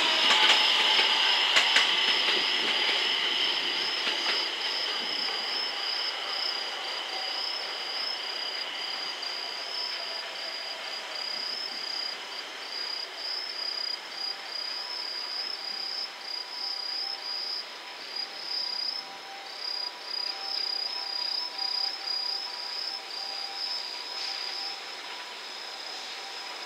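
Crickets chirping in a steady pulsing rhythm throughout. Rail noise from a train in the freight yard is loudest at the start and fades away over the first few seconds.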